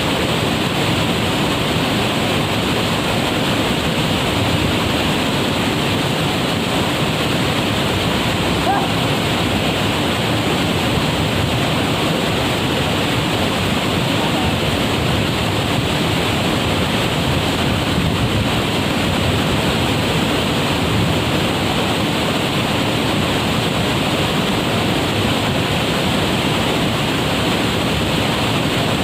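Waterfall pouring in a steady, loud rush of falling water.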